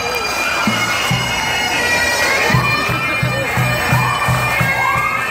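Pipe band marching past: bagpipes playing a tune over their steady drones, with the drums beating a regular marching rhythm.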